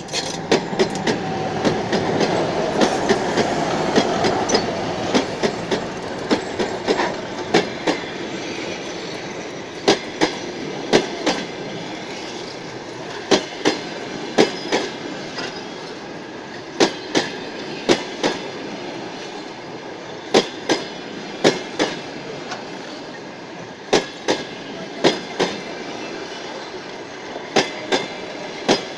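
Diesel-hauled passenger train rolling past: the locomotive's rumble fades over the first few seconds, then the coaches roll by. Their wheels clack over the rail joints, two sharp clacks about a second apart, repeating every three to four seconds.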